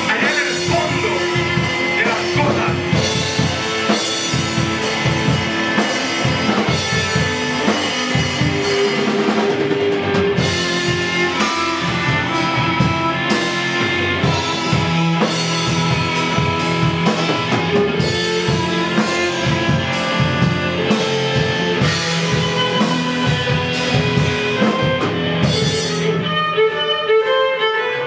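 Live instrumental rock: a Natal drum kit and guitar playing a steady, busy groove. Near the end the drums stop, leaving sustained violin notes.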